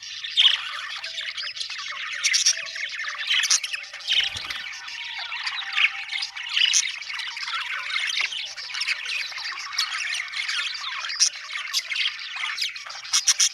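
Several budgerigars chattering and chirping together in a dense, continuous mix of overlapping warbles and squawks. A brief low thump about four seconds in.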